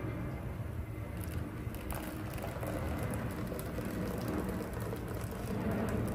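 Liquid pudding batter being poured into a caramel-lined flan mold, a steady splashing trickle over a steady low hum.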